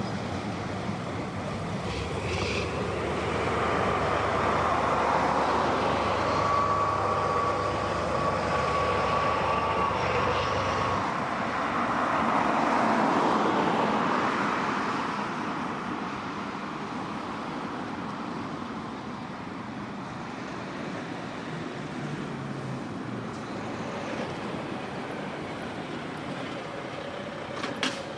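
A vehicle passing by: a rushing noise that swells twice, with a low engine hum that stops about eleven seconds in and a thin steady whine during the first swell. A sharp click near the end.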